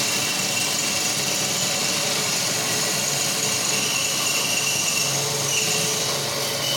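Lathe running, a steady machine noise with a thin high whine that shifts slightly in pitch near the end.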